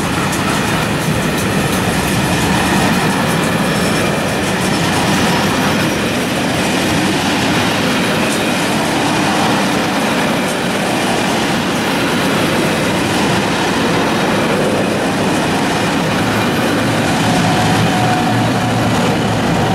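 Freight train of flat wagons rolling past with steady wheel noise and clatter. Near the end, two diesel locomotives at the rear come by, adding a steady engine drone.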